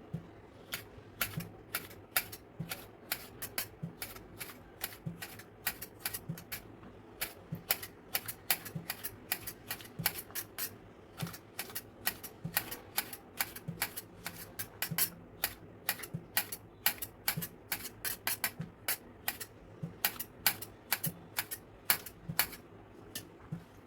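Knife chopping vegetables on a cutting board: a steady run of sharp taps, about three a second, with a few short pauses.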